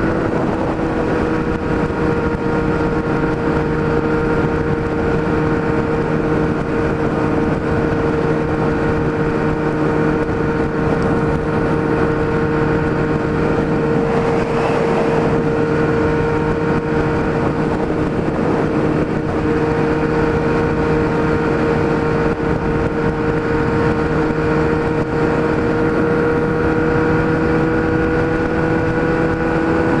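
Kawasaki Z1000 inline-four running through an open, unsilenced Atalla 4-into-1 exhaust, holding a steady drone at constant highway cruising speed. Wind rushes over the microphone and swells briefly about halfway through.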